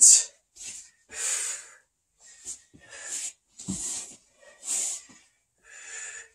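A man's heavy breathing from exertion: quick, hard breaths in and out, about one a second.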